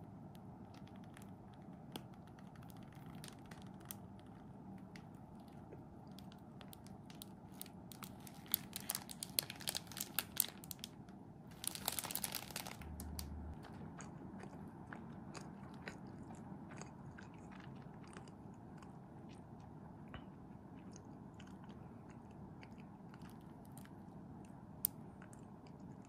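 Close-up chewing and crunching of deep-fried Japanese curry bread (kare pan) with its crisp breadcrumb crust. Scattered crunches, with a dense run of them about eight to ten seconds in and a louder crackling spell around twelve seconds.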